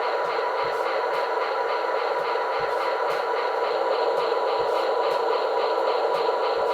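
Recorded diesel locomotive running sound with faint clicking, played through the small fixed speaker of a QSI Maxx Traxx model-train sound unit.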